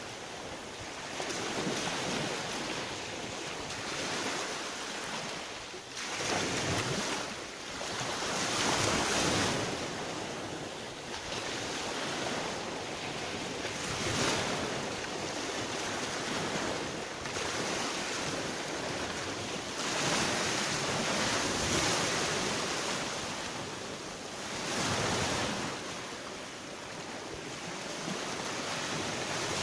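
Sea surf: waves breaking and washing on the shore in swells every few seconds, with wind buffeting the microphone.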